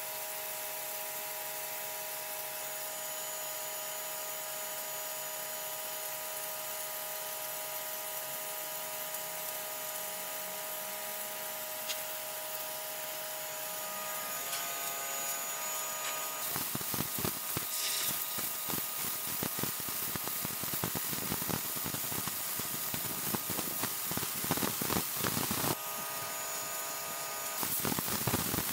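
Simoniz 1800 PSI electric pressure washer running, its jet spraying concrete: a steady hiss with a motor whine at first. About halfway through the spray against the slab turns louder and rough and spattering. It breaks off briefly shortly before the end.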